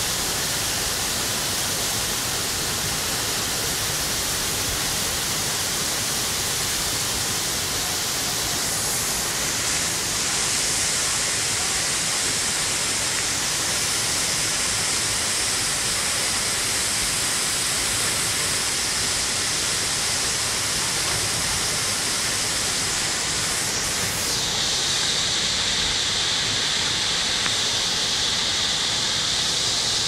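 Waterfall and rushing river water: a steady, even rush of noise that grows brighter about a third of the way in and again later on.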